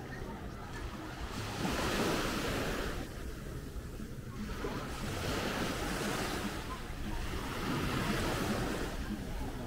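Small sea waves washing onto a beach, the surf swelling and falling back about every three seconds.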